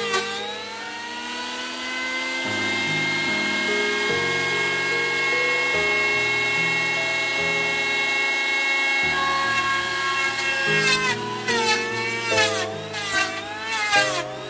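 Electric hand planer running with a steady high whine as it shaves a hardwood slab; in the last few seconds the whine dips and recovers in pitch again and again as the blades bite into the wood on each pass. Background music plays underneath.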